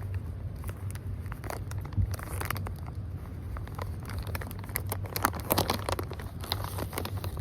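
Shiba Inu chewing and gnawing a chewy treat: irregular crackling and tearing clicks, coming thick and fast in the second half.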